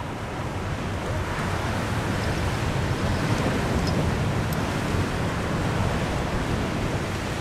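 Sea surf breaking and washing on coastal rocks, mixed with wind buffeting the microphone: a steady rushing noise that swells over the first couple of seconds.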